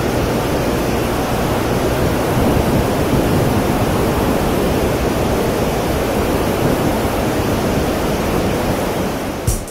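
Steady, loud rush of wind buffeting the microphone of a camera riding on a moving motorbike, masking most engine and road noise.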